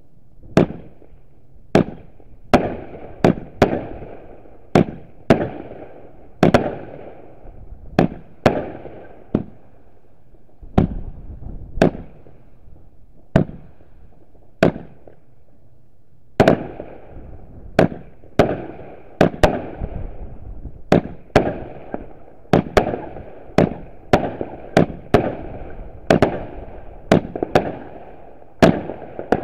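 Aerial fireworks bursting overhead: a steady run of sharp bangs, about one a second, each trailing off in an echo, with a brief lull about halfway through.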